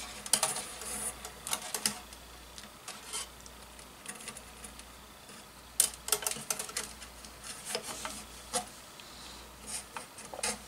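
Bundled wires being handled and pulled through a hole: rubbing and scattered light clicks and taps, with a quieter stretch in the middle and a sharper click a little past halfway.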